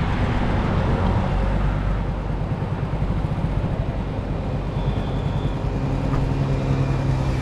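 A vehicle's engine running steadily while under way, over continuous road noise; a low hum grows stronger near the end.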